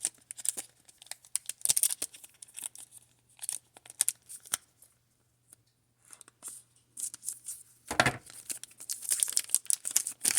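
A foil Pokémon booster pack wrapper being torn open and crinkled, in irregular bursts of crackling with short pauses. The loudest tearing comes near the end.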